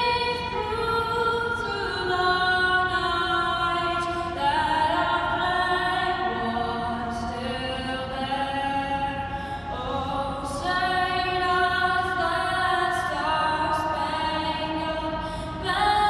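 A boy's solo voice singing the national anthem unaccompanied into a microphone, amplified over an ice arena's sound system, moving through long held notes.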